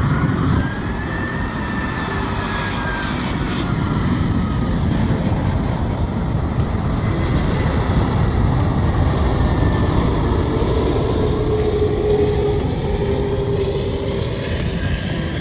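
Airbus A380's four Rolls-Royce Trent 900 turbofans rumbling steadily as the airliner comes in low to land, with a high engine whine that falls in pitch in the first few seconds and a lower whine later on.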